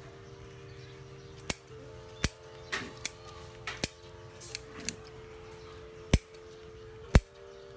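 Pruning shears snipping through the small branches of a linh sam bonsai, about nine sharp cuts at irregular intervals. Faint sustained tones run in the background.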